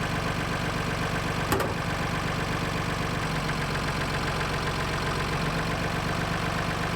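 Tractor engine idling steadily, with one sharp click about a second and a half in.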